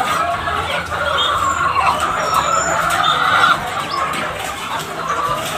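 A large flock of caged white laying hens clucking and calling together in a continuous chorus, with scattered higher squawks.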